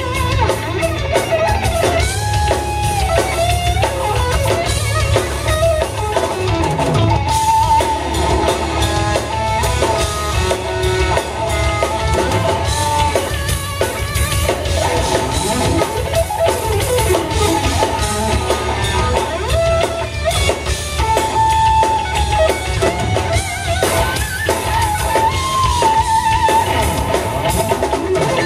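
Instrumental rock trio playing live: electric guitar carries a melodic lead with held notes and bends over bass guitar and a drum kit.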